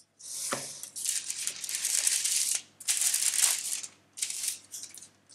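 Baking paper rustling and crinkling as it is tugged straight on a baking tray: one long rustle, then several shorter ones.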